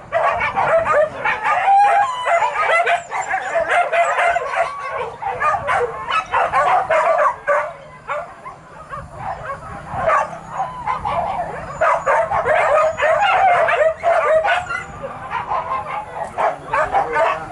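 A pack of hunting dogs yelping and barking in many overlapping voices without let-up, the excited cry of dogs on a wild boar hunt. It eases a little about halfway through, then picks up again.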